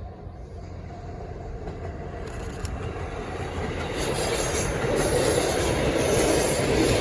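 Kyoto Tango Railway KTR8500 diesel railcar, a former JR KiHa 85, approaching on the track: its running and wheel-on-rail noise grows steadily louder, swelling markedly from about four seconds in.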